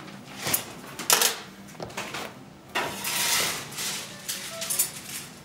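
Hand tools knocking and scraping on a metal candy-making table as a batch of hot sugar candy is worked. There are a few sharp clacks about half a second and a second in, a longer scrape around the middle, and two more clacks near the end.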